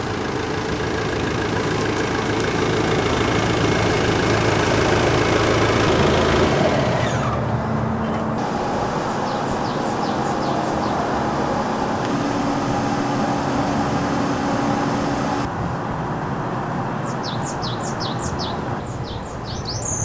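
Outdoor ambience: a steady rushing noise with a low hum underneath, and small birds chirping. The chirps are quick and high and come more busily near the end.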